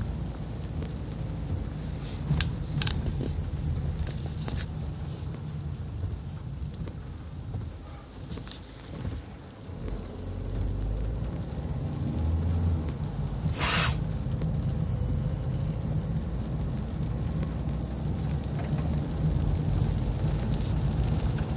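Car driving on a wet road in rain, heard inside the cabin: a steady low road and engine rumble that eases off about eight seconds in and builds again. A few sharp clicks come early, and there is one louder brief swish about halfway through.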